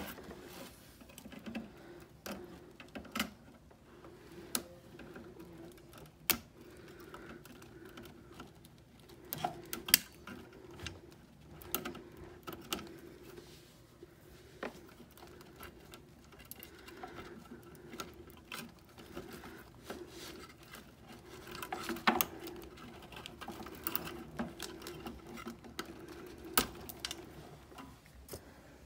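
Scattered light metallic clicks, taps and rattles as an old refrigerator condenser coil is handled and worked loose from its compartment, with one sharper knock about ten seconds in. A faint steady hum runs underneath.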